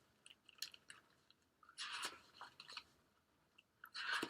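Faint handling of a picture book: a few small clicks and a brief paper rustle about two seconds in, as the book is opened past its cover.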